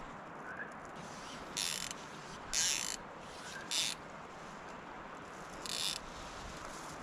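Fly reel's click-and-pawl drag ratcheting in four short bursts, the second the loudest.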